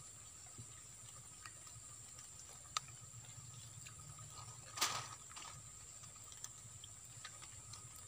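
Quiet riverbank ambience: a faint, steady high-pitched hum with scattered small ticks, a sharp click about three seconds in, and a brief rushing noise just before five seconds in.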